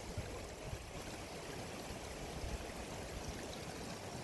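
Small spring-fed mountain stream running steadily, an even rush of flowing water.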